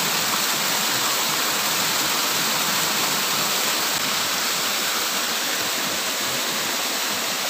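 Water from a fish pond's drain outflow pouring down into a small pool: a loud, steady rushing cascade.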